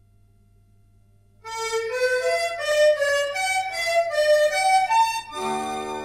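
Background music: after a near-silent start, a slow melody of single sustained notes on a reed-like instrument begins about a second and a half in, and a held chord of several notes comes in near the end.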